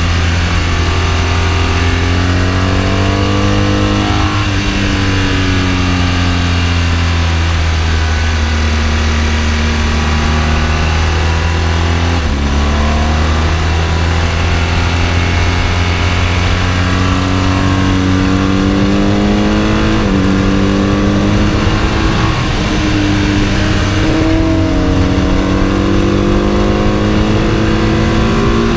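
Sport motorcycle engine heard from onboard at track speed, its pitch rising and falling with the throttle and dropping sharply about twelve seconds in, over steady wind rush on the microphone.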